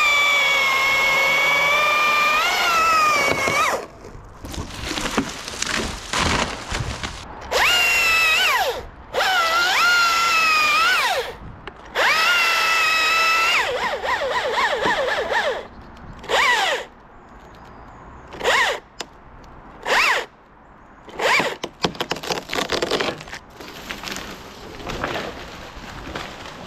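Cordless electric power tool motor whining in repeated runs. The first run lasts about four seconds, a few shorter ones follow, and the last ones are brief blips. The pitch dips and recovers within the longer runs.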